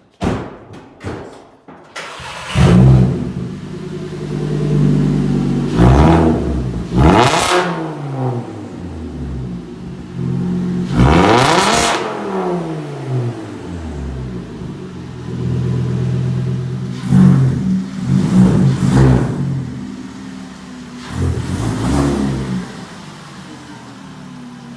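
Car engine cranks and catches about two seconds in, then settles into an idle. It is blipped up through a series of sharp revs, each falling back to idle, through an exhaust with a freshly welded-in flex pipe.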